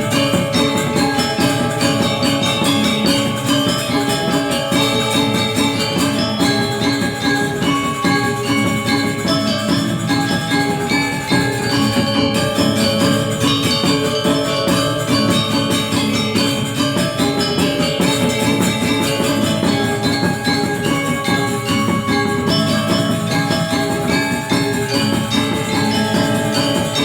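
Balinese gamelan music: bronze metallophones and gongs playing a fast, dense pattern of short ringing notes without a break.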